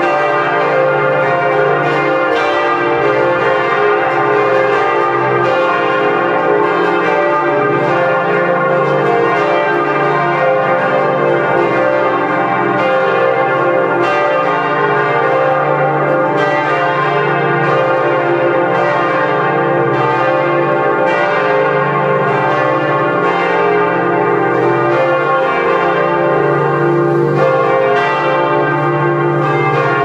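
Church bells ringing in a loud, continuous peal, their strikes overlapping so the tones hang on and blend without a break.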